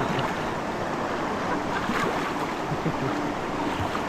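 River rapids: a steady rush of moving water.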